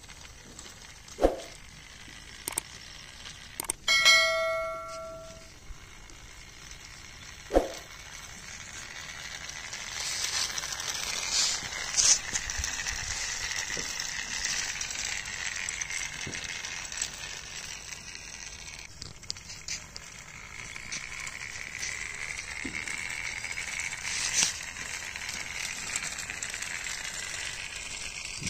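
A toy New Holland tractor and its gravel-loaded trailer rolling over sandy gravel, a gritty crunching crackle that sets in about ten seconds in and keeps going. Before it come a few sharp clicks and one short bell-like chime, about four seconds in, that rings briefly and fades.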